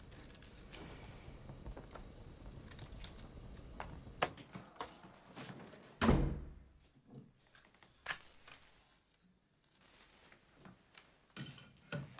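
Faint scraping and small clicks of knives peeling vegetables, then a single heavy thunk of a wooden door about halfway through, followed by a few lighter knocks.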